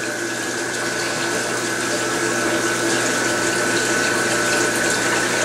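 Steady rush of flowing water with a running pump's low hum and a thin steady whine.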